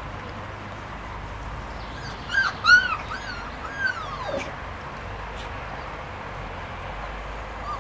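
Labrador puppy yelping and whining: a quick run of about five high, arching yelps starting about two seconds in, the last one sliding down in pitch, then one short yelp near the end.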